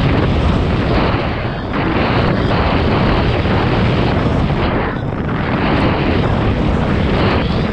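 Wind buffeting the microphone of a camera on a downhill mountain bike at speed, over the steady rumble of knobby tyres rolling fast over a gravel and dirt track.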